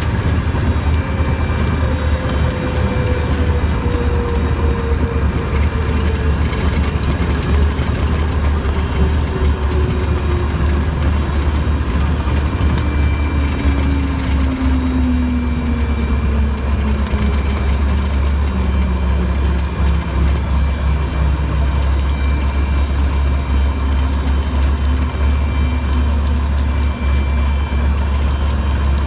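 Cabin noise of a 1961 Cessna 182, its Continental O-470 six-cylinder engine running with a steady deep drone as the plane rolls along the runway and slows. A fainter tone slides steadily down in pitch over the first twenty seconds as the plane decelerates.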